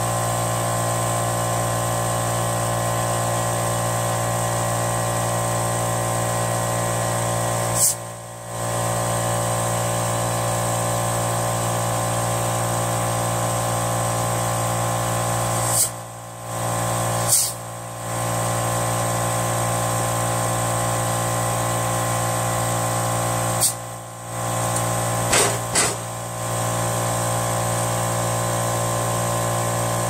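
Compressed air inflating a lawn tractor tire's new inner tube through an air chuck on the valve stem: a steady whining hiss. It breaks off briefly about five times, each break opening with a short sharp hiss.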